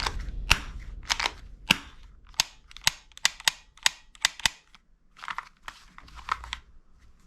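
Toy gun shots: a run of sharp cracks, about two to three a second, giving way after about four and a half seconds to fainter, duller clicks.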